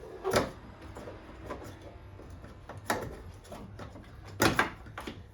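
Three sharp knocks and clanks of metal parts and tools being handled while working on an engine, the loudest a quick double knock near the end.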